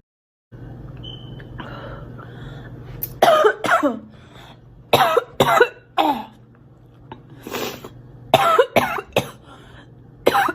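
A girl coughing in bouts of two or three short, loud, voiced coughs, about ten in all, over a steady low hum.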